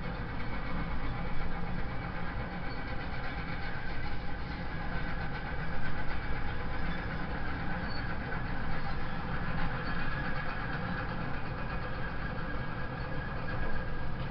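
Diesel engines of a Hitachi excavator and a waiting tipper lorry running steadily as the excavator digs and loads spoil.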